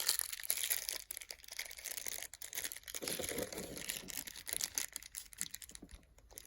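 Small faucet parts and their packaging being handled: rustling with many light clicks and rattles.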